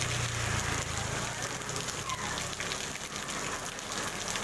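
Steady rain pattering on a wet paved street and puddles, a continuous dense hiss of drops.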